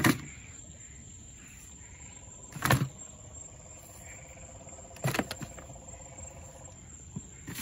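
Dead green iguanas dropped one at a time into a plastic bucket, each landing with a thud against the plastic and the bodies already inside, about every two and a half seconds, four in all. A faint steady trill runs in the background midway.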